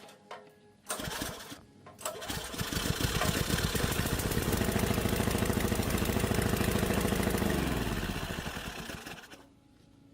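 Restored 1980s small gasoline engine starting up: it fires unevenly for a couple of seconds, then catches and runs steadily. Near the end its note falls as it slows and stops.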